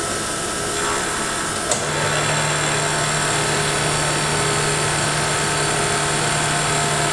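Vertical milling machine running a shear hog face mill at about 1800 RPM, taking a light facing cut on a metal part. Just under two seconds in there is a click, after which a low steady hum joins and the sound grows slightly louder.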